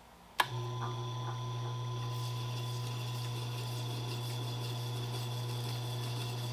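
Tormek T4 sharpening machine running with a steady low hum while a chisel in its jig is worked against the turning grinding stone. The hum starts suddenly with a click about half a second in.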